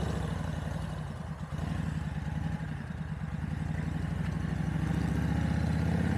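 Motorcycle engine running at low speed, heard through a microphone inside the rider's helmet: a low, pulsing engine note that grows somewhat louder toward the end.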